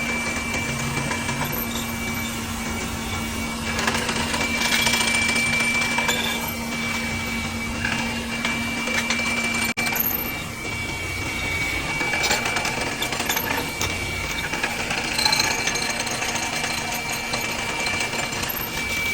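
Drill running with a square-hole drill bit boring into wood: a steady motor whine under rattling, chattering cutting noise. The sound cuts out for an instant about halfway through.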